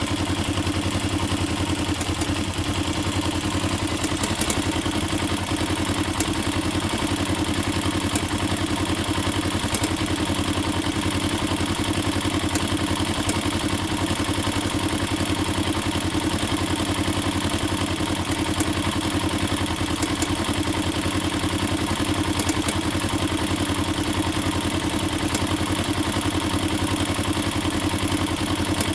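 Honda NX4 Falcon's single-cylinder four-stroke engine idling steadily, with a strange clattering noise that the owner says grew louder after switching from 20W50 to a thinner 10W30 oil; he suspects the automatic decompressor or the cam chain tensioner.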